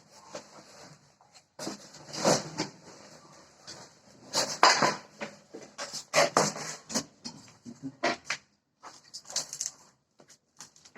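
Irregular metallic clinks, knocks and clatter of handheld tools and metal parts being handled, such as a drill and hole saws, with louder clusters about two, four and a half, and six seconds in.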